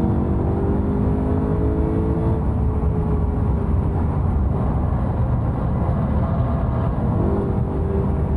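BMW E92 M3's 4.0-litre V8 running hard, its note climbing over the first two seconds, then blurred under heavy low road rumble before a steady note returns near the end.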